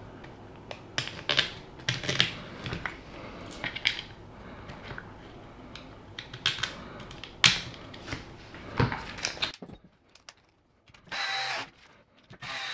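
Irregular clicks and taps of small hard plastic and metal parts and hand tools being handled while suspension links are screwed onto an RC crawler chassis. It goes quiet about ten seconds in, followed by a short rustle.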